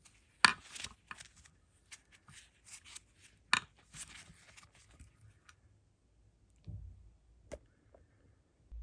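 Metal hand-tool clicks and knocks on a brake caliper, sharpest about half a second and three and a half seconds in, with a couple of duller knocks near the end, as a Torx bit hammered into a snapped brake-pipe screw is worked to turn the screw out.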